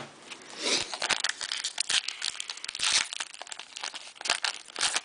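Foil trading-card pack wrapper crinkling and tearing as it is ripped open, a dense run of sharp crackles and rustles.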